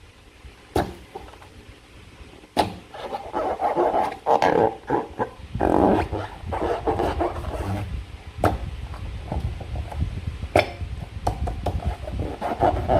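Slime being squished and worked by hand, with wet, sticky squelching in uneven bursts. Four sharp clicks or taps are spread through it.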